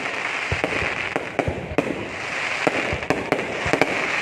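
Fireworks going off: a continuous dense crackle with frequent, irregular sharp bangs from bursting shells.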